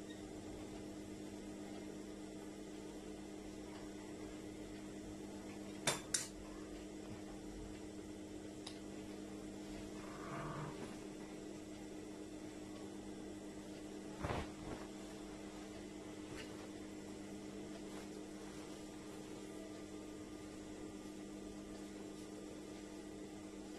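A steady low hum, broken by a few sharp clicks and knocks of things set down on the sewing table: a quick double click about six seconds in, a softer knock a few seconds later, and another click at about fourteen seconds.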